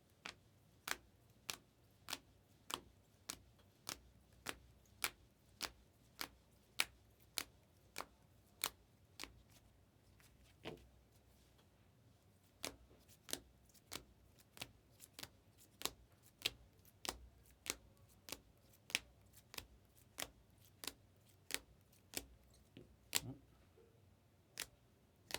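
Hockey trading cards being laid down or flipped one at a time on a table: a steady run of crisp clicks, about one and a half a second, with a short pause about ten seconds in.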